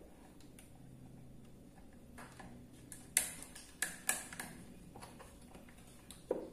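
Sharp clicks and taps of a screwdriver and terminal bolts as the cables are fastened onto a new motorcycle battery: four clicks close together a few seconds in, and one more near the end.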